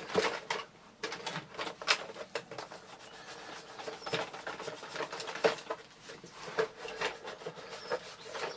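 Irregular rubbing and scrubbing strokes on the inside of a vacuum cleaner's floor head as grime is wiped out of it.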